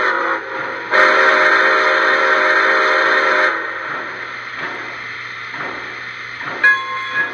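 Sound system of a Lionel Pere Marquette 1225 Berkshire model steam locomotive: the end of one steam-whistle blast, then a second long blast from about one second in to three and a half seconds, as the engine starts off. The whistle gives way to a steady chuff of about two beats a second, with a single bell-like ring near the end.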